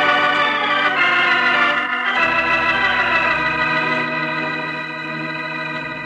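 Organ music: a few sustained chords, changing about one and two seconds in, then one long held chord that slowly fades.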